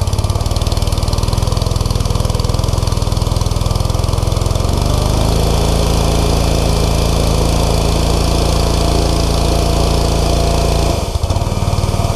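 Pressure washer's Honda engine running steadily just after its first cold start, warming up. Its note changes about five seconds in, and again with a brief dip near the end.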